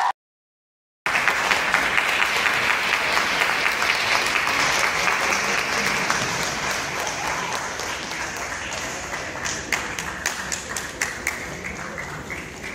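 Audience applauding, a dense patter of hand claps. It starts after about a second of silence, then thins and fades toward the end.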